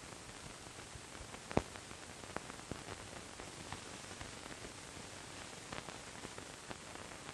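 Faint steady hiss and crackle from an old film soundtrack, with scattered small clicks and one sharper click about a second and a half in.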